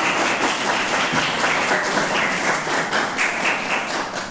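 Audience applauding, a steady clapping of many hands that dies away near the end.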